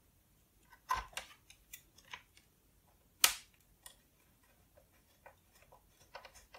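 Hands fitting screws into a PowerBook 180's plastic display assembly: scattered small clicks and taps, with a sharp click about a second in and a louder one a little over three seconds in.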